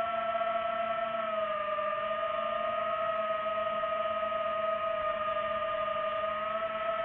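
DJI FPV drone's motors and propellers whining steadily in flight: one high, siren-like tone with an overtone that dips slightly in pitch about a second and a half in and rises again near the end.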